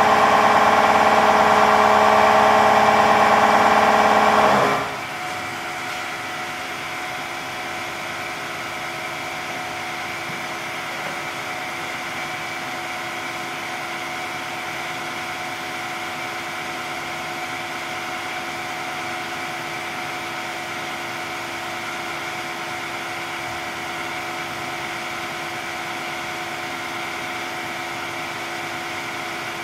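Steady machine hum from the laboratory densification press's machinery, made of several steady tones together. About five seconds in it drops sharply to a quieter steady hum that carries on unchanged.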